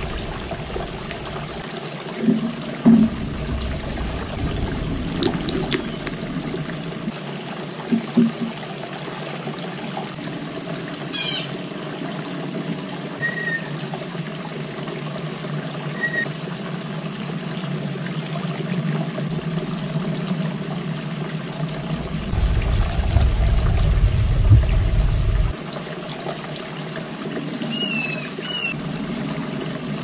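Small stacked-stone garden fountain trickling steadily, with a few short bird chirps. A low rumble swells for a few seconds past the middle.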